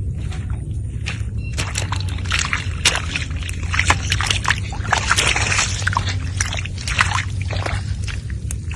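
Water splashing and sloshing in a quick run of short splashes, over a steady low hum.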